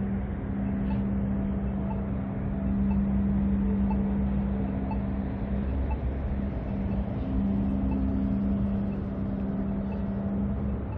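Traffic at a signalled intersection: vehicle engines with a steady low hum, and faint ticks about once a second from the crosswalk's accessible pedestrian signal.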